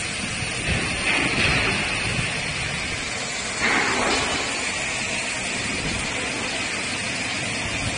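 CNC router axis drives moving the gantry in two short jogs, about a second in and again near the middle, as the handwheel pendant is turned. A steady machine hiss runs underneath.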